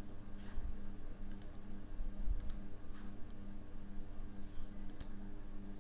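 About five scattered clicks from a computer's mouse and keyboard, spaced irregularly, over a steady low electrical hum.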